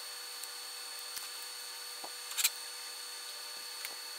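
Gloved hands handling electrical tape, wires and a battery: quiet rustles and small clicks, with one louder crinkle about halfway through, over a steady faint hiss.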